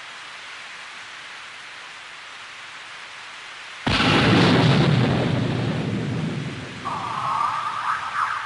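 Steady heavy rain, then about four seconds in a sudden loud thunderclap that rumbles and slowly fades. Near the end a wavering higher-pitched sound joins in.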